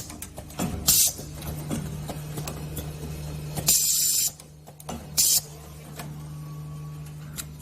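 Automatic soldering machine running with a steady hum, broken by three short, sharp hisses of air: one about a second in, a longer one near four seconds, and one just after five seconds.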